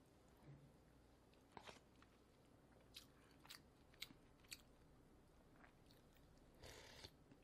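Faint close-miked eating sounds: a person chewing food taken from a plastic tray with a spoon, heard as scattered soft mouth and spoon clicks, with a short scrape near the end.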